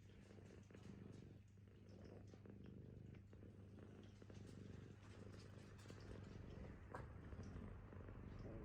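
American Shorthair cat purring, a steady low rumble, with one faint click about seven seconds in.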